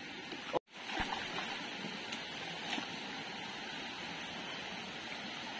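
Shallow stream water running over rocks, a steady rush with a few faint ticks and small splashes. The sound cuts out briefly about half a second in.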